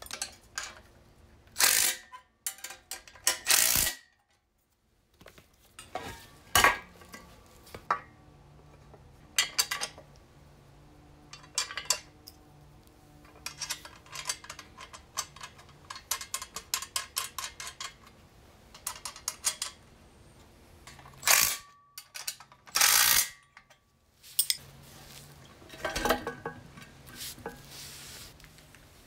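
Metal clinks and knocks of a socket ratchet and spanner on nuts and bolts against a steel bracket, with several runs of rapid ratchet clicking as the bolts are run down.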